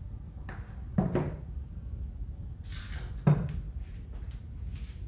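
Handling knocks and light clatter as parts of an old Arno fan are worked on by hand. There are two sharp knocks, about a second in and just past three seconds, with a short hiss just before the second and a few fainter clicks, over a steady low hum.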